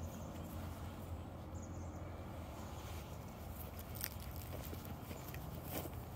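Footsteps of a person and a leashed Keeshond walking on dry grass and dirt, with a few faint clicks, over a steady low rumble.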